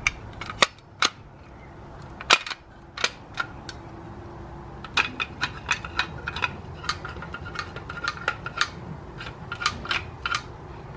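Sharp clicks and taps from the old and new truck door lock and handle parts being handled and worked by hand: a few loud clicks in the first two and a half seconds, then a run of quicker, lighter clicks from about five seconds in.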